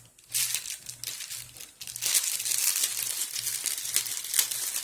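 Plastic packets of diamond-painting drills crinkling and rustling as they are handled, an irregular run of crackles.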